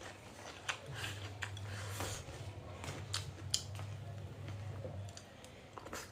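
Scattered light clicks and taps of tableware during a meal, over a low steady hum that runs from about one second in to about five seconds.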